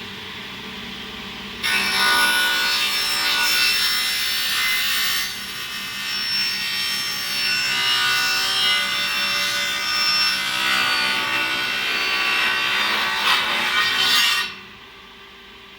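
Petrici mitre saw with a 330 mm blade running, then cutting through a workpiece: a loud, harsh sawing noise starts suddenly about a second and a half in, eases briefly partway through, and stops sharply near the end, leaving a much quieter steady sound.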